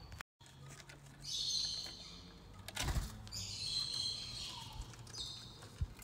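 Small green parrots calling: three short, high, harsh calls a second or so apart, with a single knock about halfway through.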